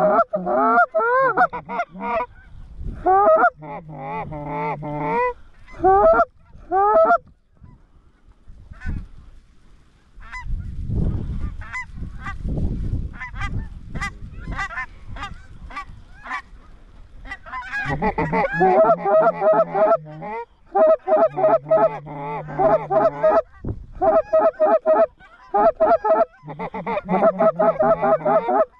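Geese honking and clucking in quick bursts, thinning out about a third of the way in and then building to dense, rapid calling in the second half. Low wind rumble on the microphone in the lull.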